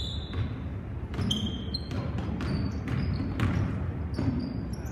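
A basketball being dribbled on a hardwood gym floor, with irregular bounces about once a second. Sneakers squeak briefly and sharply on the court between the bounces.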